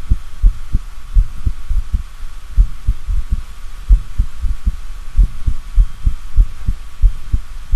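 Heart sounds: a run of short, low, dull thuds, about three a second, from a heart with extrasystoles (premature beats). A faint steady hum runs behind them.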